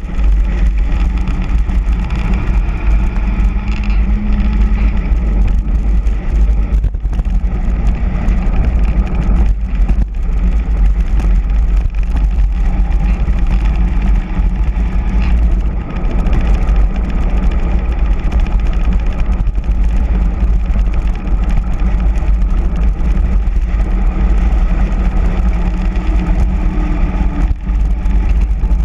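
Loud, steady wind rush buffeting the microphone of a handlebar camera on a bicycle descending at speed, with the hum of all-terrain tyres rolling on asphalt underneath.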